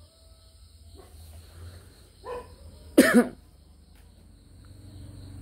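A man coughs close to the microphone, a sharp double cough about three seconds in, after a softer throat sound just before it. Crickets trill steadily in the background.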